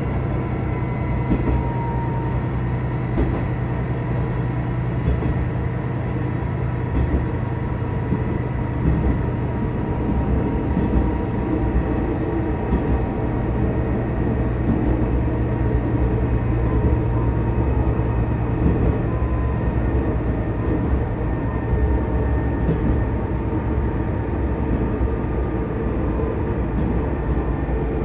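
Tosa Kuroshio Railway 8000-series diesel railcar running along the line, heard from inside the car. The engine and wheels make a steady low rumble with a faint whine.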